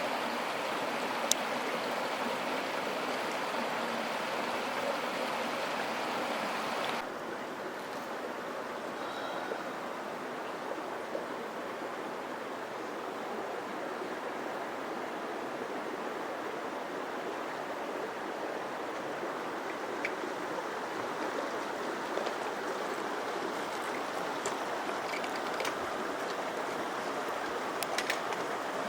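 A shallow canyon creek flowing over rocks, a steady rushing of water. About seven seconds in it becomes quieter and duller and then carries on evenly.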